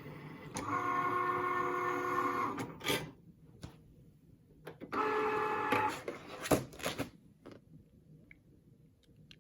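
Cricut Maker cutting machine running a cut: its motors whine in a steady, multi-toned run for about two seconds, stop, then run again briefly about five seconds in. Sharp clicks and knocks from the machine come between and after the runs.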